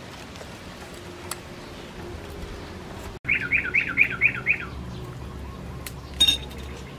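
A small songbird gives a quick run of six falling chirps, then a single short call about a second and a half later, over a steady low hiss.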